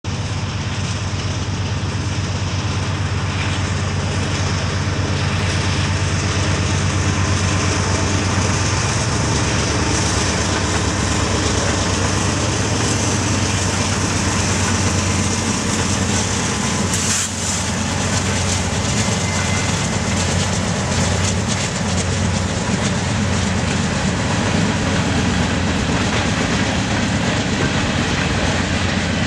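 BNSF diesel locomotives hauling a unit grain train pass close by, their engines giving a steady low drone that is strongest in the first half. After that comes the continuous rolling rumble of the covered hopper cars' wheels on the rails.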